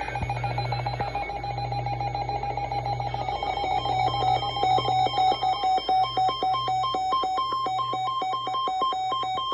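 Electronic alert tone, likely a weather radio's warning alarm. It starts as a steady beep with rapid ticking, then turns into two pitches alternating a few times a second, and cuts off abruptly near the end.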